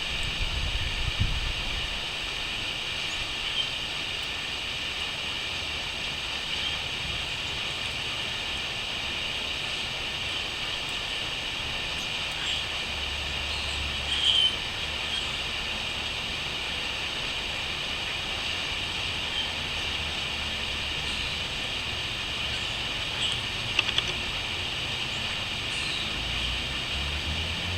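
Steady chorus of crickets trilling, with a few short bird chirps, the loudest about halfway through and near the end. A low rumble sounds underneath at times.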